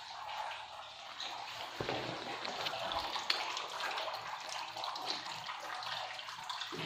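Water trickling and dripping into standing water, with a few light ticks.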